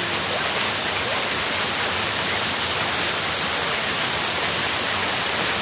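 Heavy waterfall crashing down, a loud steady rush of falling water.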